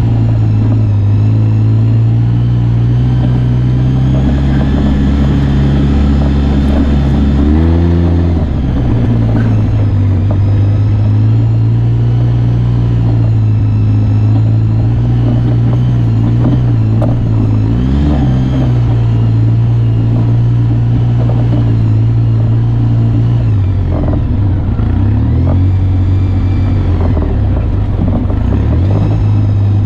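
Off-road vehicle engine running steadily while riding a trail, with brief throttle changes: the pitch jumps up about eight seconds in, again around eighteen seconds, and dips and rises a few seconds before the end. A few light knocks come through over the engine.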